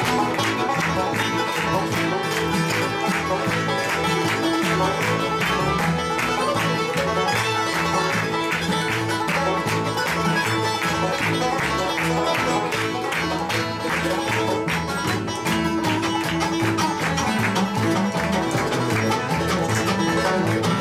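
Bluegrass band playing an instrumental live on fiddle, mandolin, acoustic guitar, banjo and upright bass, with steady, rapid picking throughout.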